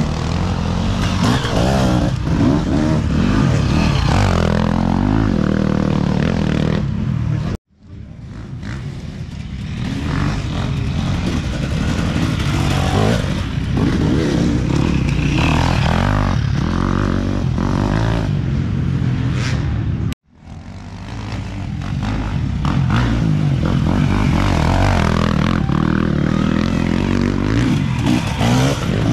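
Enduro dirt bike engines revving as riders go by, the pitch rising and falling with the throttle. The sound cuts off abruptly twice and fades back in.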